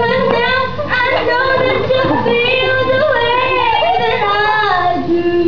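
A girl singing solo into a corded microphone, her voice holding long, smoothly bending notes.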